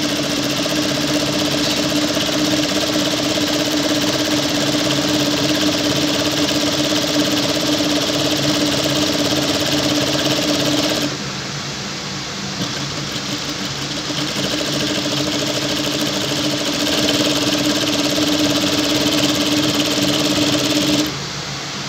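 Industrial lockstitch sewing machine with a gathering foot running steadily, gathering a net fabric underneath while stitching a plain fabric on top. About eleven seconds in it drops to a quieter hum for a few seconds, then sews again and stops shortly before the end.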